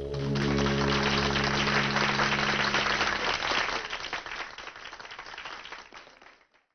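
Audience applause, many hands clapping, over the song's final held chord. The chord stops about three seconds in, and the clapping dies away over the next few seconds.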